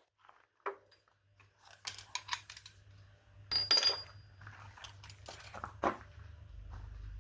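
Small metal tools and parts clinking and rattling during hand work, with one sharper ringing clink about halfway through.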